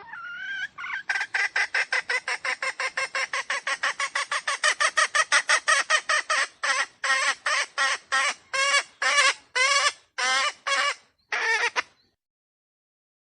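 Red junglefowl (wild chicken) giving a long run of short, rapid calls, about four or five a second, that space out after about six seconds and stop shortly before the end.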